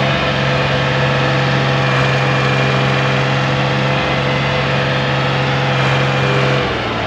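Concrete mixer truck's diesel engine running steadily at idle, its note dropping slightly near the end.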